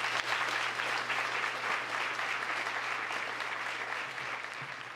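Small audience applauding with hand claps, thinning out gradually near the end.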